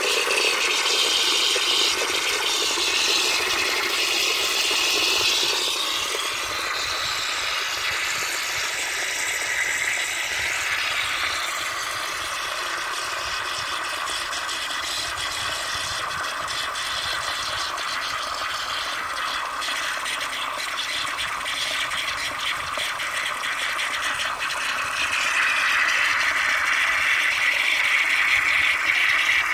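Cast-iron toilet cistern refilling through its W & J Lawley high-pressure brass float valve, with a steady hiss and splash of water jetting into the tank. It eases a little midway and grows louder again near the end.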